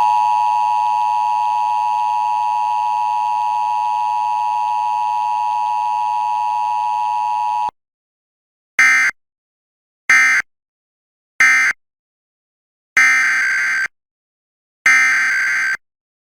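Emergency Alert System two-tone attention signal sounding steadily for about eight seconds, then cutting off abruptly. It is followed by three short bursts of the EAS data tones (the end-of-message code) and then two longer data bursts about two seconds apart, the header of the next alert.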